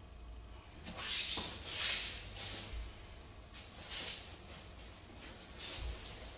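Short hissing bursts of forceful breath, of the kind used in Hangetsu kata, mixed with the swish of karate uniforms as two karateka move through techniques, with two soft thumps of feet on the mat.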